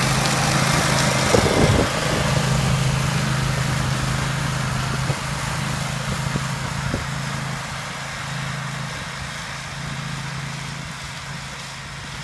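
Grillo Climber 9.18 ride-on mower's engine running steadily while it mows long grass, a steady hum that slowly fades as the mower moves away.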